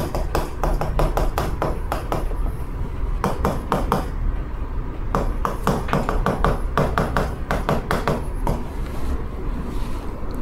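Chalk tapping and scratching against a chalkboard in many quick short strokes as handwriting is written, the clicks thinning out near the end.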